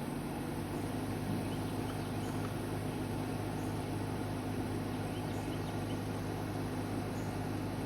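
Steady hum of a 1997 Toyota Camry idling with its air conditioning running, heard from inside the cabin.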